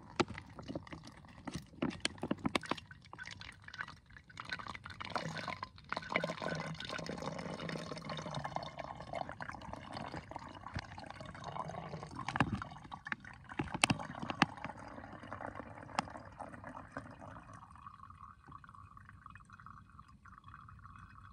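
Filtered water squeezed from a handheld squeeze filter into a plastic bottle, a steady trickling fill with scattered small clicks. The stream thins near the end.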